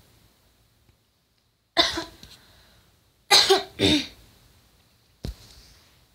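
A person coughing four times: one cough, then two close together that are the loudest, then a short last one near the end.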